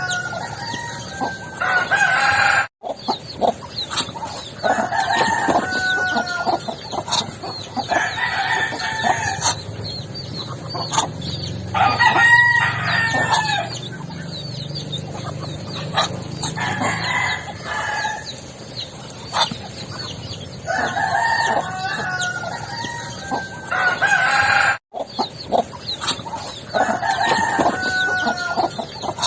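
Backyard chickens: roosters crowing again and again, a call every few seconds, with hens clucking and short chirping calls between the crows.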